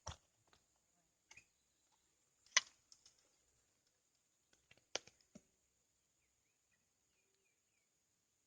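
A few scattered sharp clicks or knocks, the loudest about two and a half seconds in, over a faint steady high-pitched tone.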